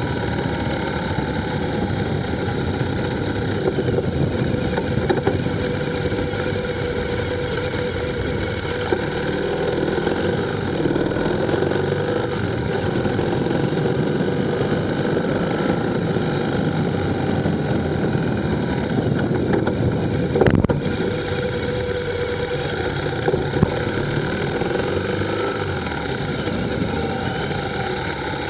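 Vehicle engine running steadily as the vehicle drives along, heard from a camera mounted on it, with a single sharp knock about twenty seconds in.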